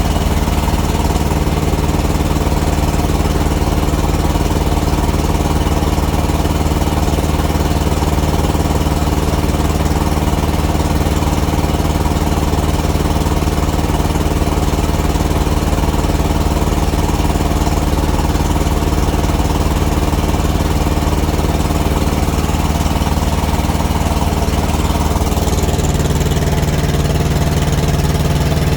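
Thermo King TriPac APU's three-cylinder diesel engine running steadily, sounding a little rough, with a small exhaust leak that makes it a bit loud. Its note shifts slightly near the end.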